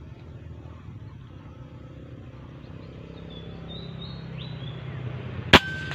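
A single sharp air-rifle shot about five and a half seconds in, followed by a brief thin ringing tone. Before it, small birds chirp over a steady low hum.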